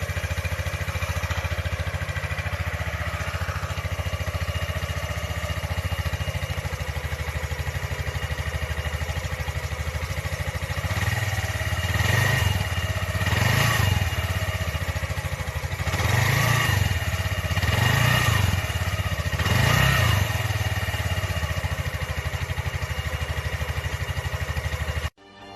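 Suzuki GZ150's single-cylinder four-stroke engine idling steadily through an exhaust pipe drilled with holes to make it louder. The throttle is blipped about five times in the middle, each rev rising and falling briefly.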